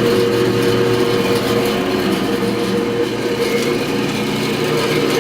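1976 Powermatic 141 14-inch band saw running free with no cut: a steady motor hum with a few even tones. The motor sounds smooth, running on a newly replaced pulley and new V-belt.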